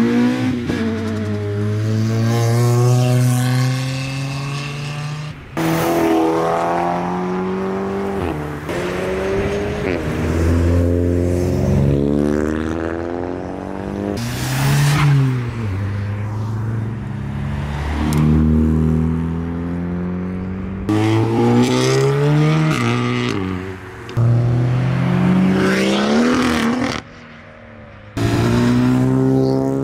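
Modified tuner cars pulling away one after another, their engines revving hard and climbing in pitch through the gears, each climb dropping back at a gear change. The sound cuts abruptly from one car to the next several times.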